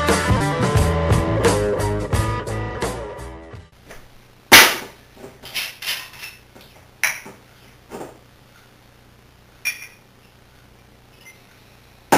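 Guitar rock music fades out over the first few seconds. Then comes a sharp knock, the loudest sound here, about four and a half seconds in, followed by a run of lighter clicks and clinks as a glass bottle is handled and opened on a countertop, and another sharp knock at the very end.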